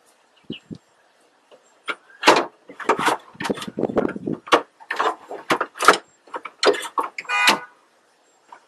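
A hard, brittle plastic dash bezel being pried loose with a plastic trim removal tool: a run of clicks, snaps and rattles from the panel and its clips, with a short creak near the end.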